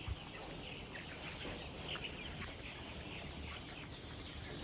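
Steady background ambience of a flock of young cockerels in a chicken house, with faint scattered chirps and clucks over a low noise hiss.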